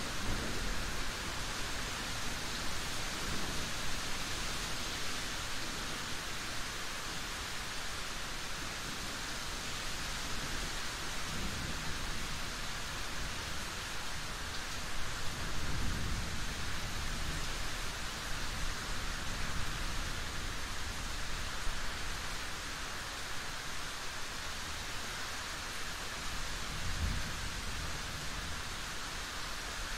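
Steady, even rainfall with a few low rumbles of thunder, one about a third of the way in, one in the middle and one near the end.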